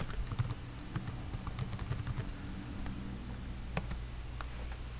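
Computer keyboard typing: a handful of scattered, irregular keystrokes over a low steady hum.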